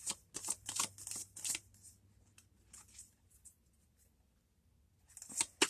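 Tarot deck being shuffled by hand: a quick run of papery flicks and card slaps over the first second and a half, a few scattered ones after, then a pause and another flurry near the end.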